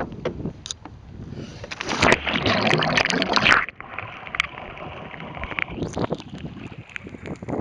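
Wind buffeting the microphone and sea water sloshing and splashing around a sea kayak's bow in wind chop. A louder rush of splashing starts about one and a half seconds in and stops suddenly about two seconds later.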